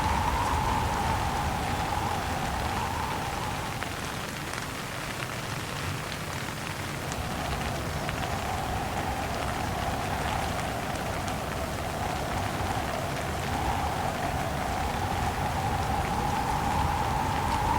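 Steady rain mixed with gusting wind, easing off a few seconds in and building again toward the end.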